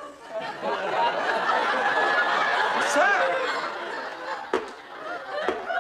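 Studio audience laughing, swelling up about half a second in and dying away after about four seconds, followed by a few short, sharp knocks near the end.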